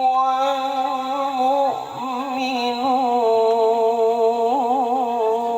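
Melodic Quran recitation: one voice holds a long drawn-out note between 'min rabbihi' and 'wal-mu'minun', with a brief break about two seconds in, then wavering ornamented turns.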